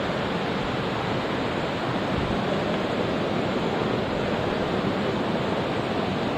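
Mountain stream water rushing steadily over rocks, a constant even noise with no breaks.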